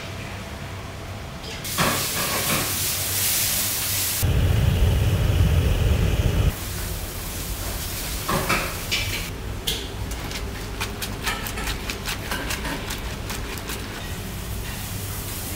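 Water at a rolling boil in a large kazan, a steady steamy hiss, with a louder, deeper stretch of noise about four seconds in as salt is poured into it. From about ten seconds on a wooden paddle stirring lagman noodles in the kazan makes quick light clicks and knocks against the pot.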